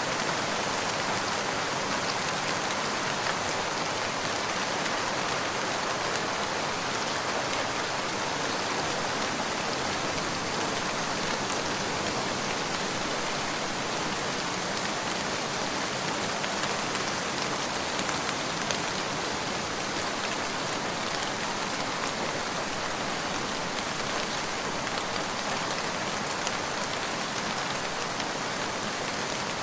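Steady rain falling, an even hiss that carries on without pause or change.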